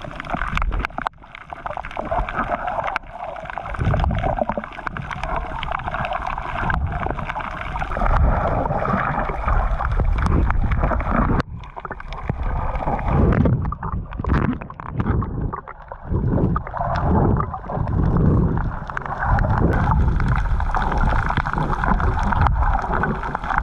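Muffled underwater water noise heard by an action camera in a waterproof housing as it moves through shallow water: gurgling and sloshing with irregular low surges.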